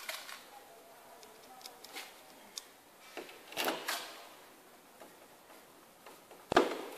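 Scattered light clicks and taps of a screwdriver and small fittings being handled against a shower cabin panel and frame, with one sharp knock near the end, the loudest of them.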